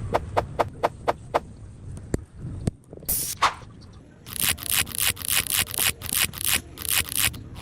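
Hand-tool work on a water pipe: a few sharp clicks, then a run of quick scraping strokes, about four a second.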